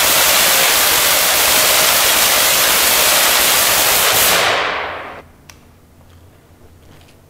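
75,000-volt electric arc discharging: a loud, dense crackling hiss that dies away over about a second, some four and a half seconds in.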